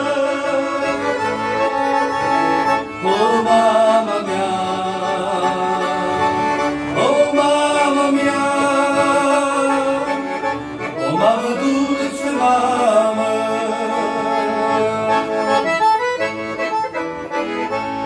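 Piano accordion playing an instrumental interlude between sung verses of a hymn-like song: a melody over sustained chords, with the tune moving to new notes every few seconds.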